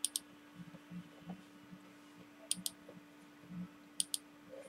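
Computer mouse button clicked three times, each click a quick press-and-release pair, as lines are selected one by one in a CAD program. Soft low knocks come between the clicks, over a faint steady hum.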